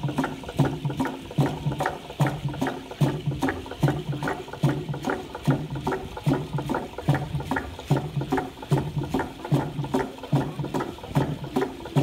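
Rhythmic percussion of a Malakula kastom dance: dense clattering rattles over a steady low pulse about twice a second.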